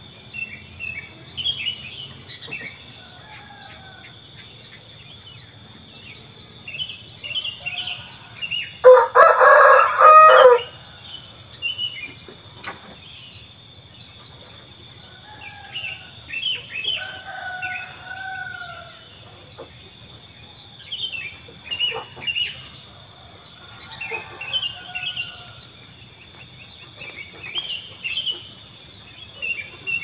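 A rooster crows once, loudly, about nine seconds in. Under it run a steady insect chorus and scattered chirps and short whistled calls of small birds.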